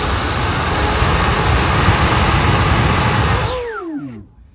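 Electric ducted fan of an FMS Futura RC jet at high throttle: a loud, steady high whine over rushing air, its pitch creeping up a little. About three and a half seconds in it is throttled back, and the whine falls in pitch as the fan spins down.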